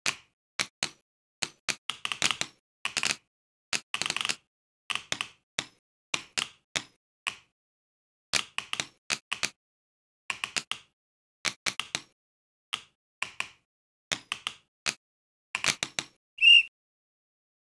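Mobile air hockey game sound effects: sharp clicks as the puck strikes the mallets and table edges, single and in quick clusters, with dead silence between. A short high beep sounds near the end as a goal is scored.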